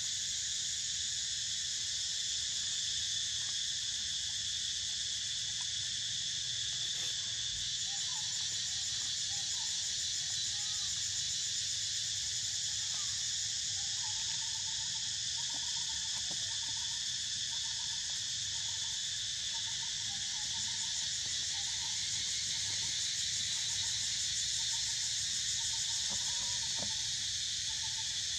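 Steady, high-pitched insect chorus, unbroken and even in level, with faint wavering squeaks heard through the middle part.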